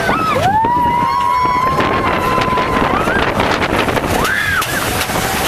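Roller coaster rider screaming: one long held scream that glides up, holds steady, then rises again, and a short yell about four seconds in. Under it are wind noise on the microphone and the rumble of the mine-train coaster.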